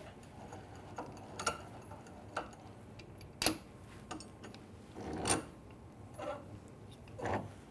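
Irregular light clicks and knocks, about eight over several seconds, as a pen press is clamped in a bench vise: hands handling the press board and turning the metal vise handle.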